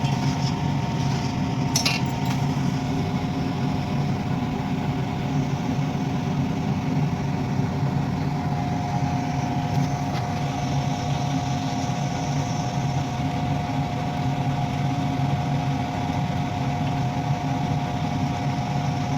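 Steady machine hum with a constant whine, unchanging throughout, and a short clink about two seconds in.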